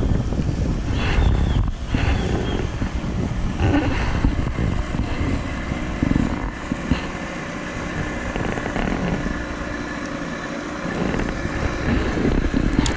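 Small fiberglass boat's outboard motor running steadily, mixed with wind buffeting the microphone.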